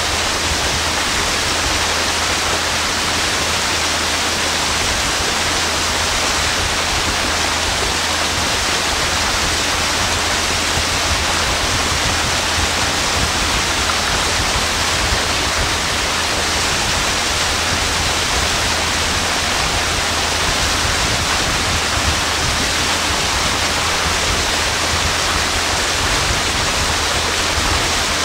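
Motorboat running fast on a river: a steady, loud rush of wind and water spray, with a low steady drone from the boat's motor underneath.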